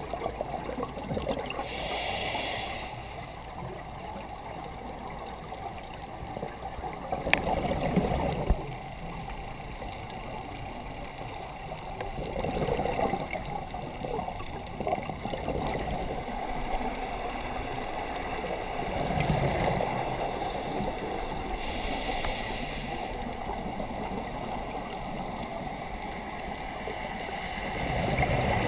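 Muffled underwater noise recorded through a dive camera's housing, with the gurgling of scuba divers' exhaled bubbles swelling every several seconds. Two short hisses come about two seconds in and again near the three-quarter mark.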